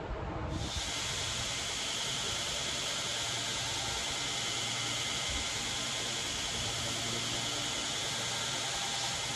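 Belt grinder running with a Damascus steel knife guard held against the belt, a steady hiss with a strong high edge over a low motor hum. It cuts in about half a second in.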